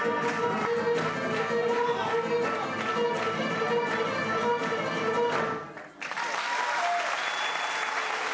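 Live Cretan folk dance music, a melody over lute and a steady beat, ends sharply about five and a half seconds in; audience applause breaks out half a second later.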